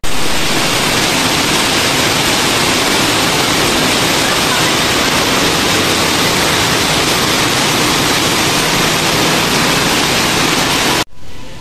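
A steady, loud rushing noise, even across all pitches, that cuts off abruptly near the end.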